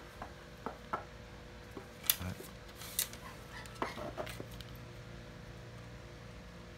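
Scattered light clicks and knocks of a fishing rod and a rod-holder bracket being handled, the sharpest about two seconds in, over a faint steady hum.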